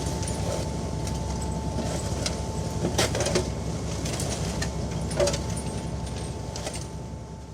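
Fishing-boat deck ambience: a steady low engine rumble with a faint steady whine, and occasional sharp knocks and clatter, the loudest about three and five seconds in. It begins fading out near the end.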